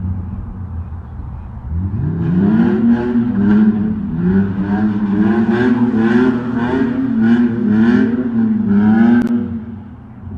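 Car engine revving up from a low rumble to high revs about two seconds in. It is held there for several seconds with the pitch repeatedly rising and falling, then drops back near the end.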